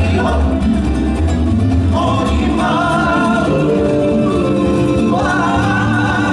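Polynesian dance song playing loud: a voice singing over instruments with a strong bass.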